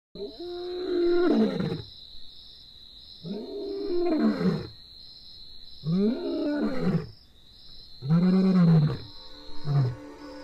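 Male lion roaring: four long, loud roars that rise and fall in pitch, about two seconds apart, followed near the end by the shorter grunts that close a roaring bout.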